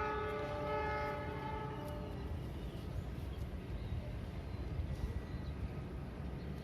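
Freight train locomotive's horn, a chord of steady tones, dying away over the first two seconds. It leaves the steady low rumble of the passing freight train.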